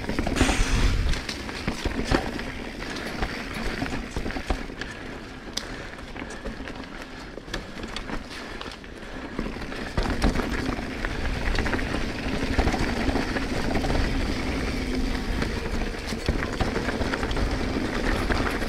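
Transition Sentinel full-suspension mountain bike being ridden along a dirt trail: a steady rolling rumble from the tyres with frequent clicks and knocks from the bike, growing louder about ten seconds in.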